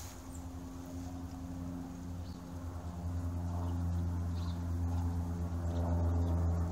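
A steady low hum made of several held tones, growing louder about three seconds in, with a few faint short high chirps over it.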